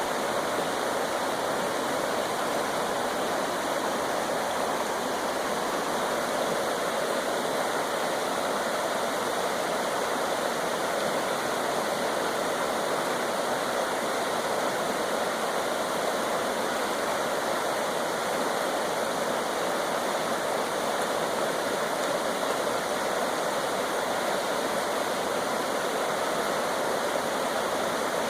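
Creek water rushing and splashing over rocks, a steady rush without a break.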